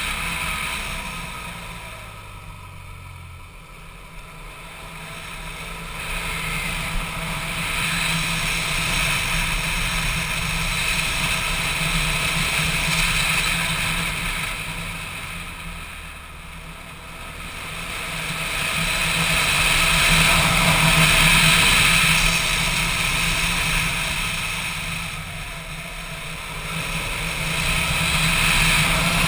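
Motorcycle engine running under way, with wind rushing over the camera. The sound swells and eases a few times along the ride.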